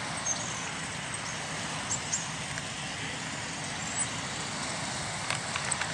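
Several motorcycles idling at a distance, a steady low engine sound with a few small clicks and short high chirps over it.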